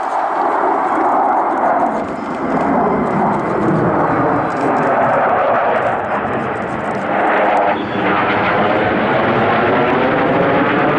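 Jet engines of a formation of Sukhoi Su-27 fighters passing overhead: a loud, steady jet roar with a shifting, swishing tone as the aircraft move across the sky.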